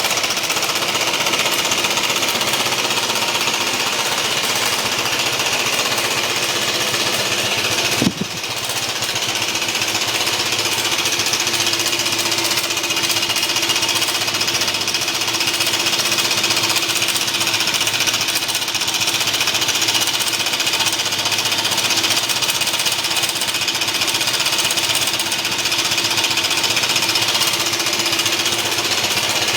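BMW C1 200 scooter's Rotax single-cylinder engine running with a loud, rapid mechanical clunking rattle, a noise its owner calls very terminal sounding. The sound dips briefly about eight seconds in.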